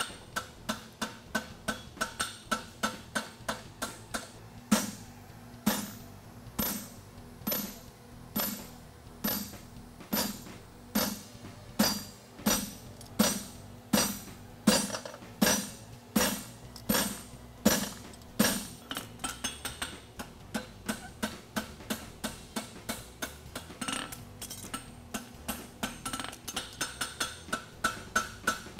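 Farrier's hand hammer striking a red-hot steel horseshoe on an anvil, each blow ringing, while the shoe's heels are forged. The strokes come as quick, lighter taps at first, then slower, heavier blows about one a second through the middle, and quick taps again near the end.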